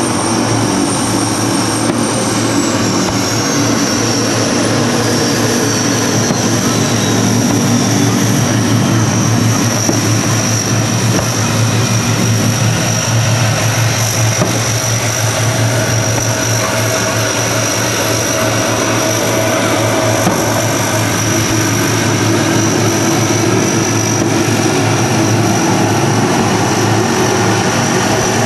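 A steady, engine-like drone with a high whine that glides down in pitch over several seconds soon after the start.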